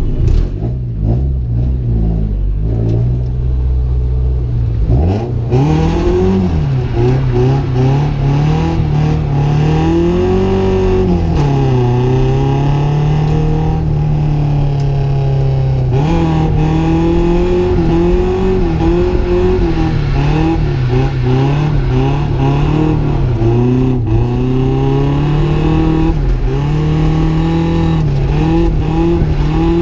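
Nissan 240SX drift car's engine, heard from inside the cabin, running low and steady at first, then revving hard about five seconds in, its pitch rising and falling again and again as it is driven on track.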